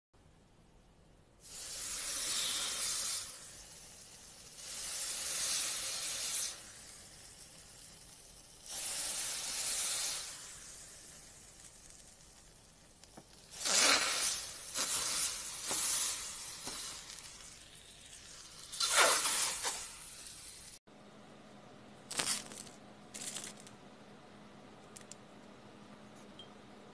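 A knife slicing through glitter-coated crafts, and hands pressing into glitter: a series of hissy, crackly scraping strokes a few seconds apart, with several quick strokes in a row near the middle. Near the end it is quieter, with a few light clicks.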